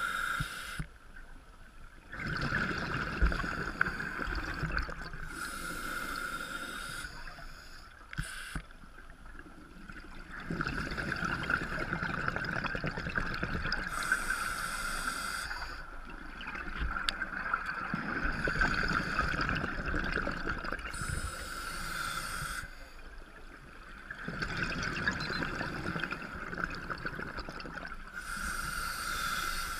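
Scuba diver breathing through a regulator underwater: a hiss on each inhale and a rush of bubbles on each exhale, in slow cycles of several seconds, about four breaths.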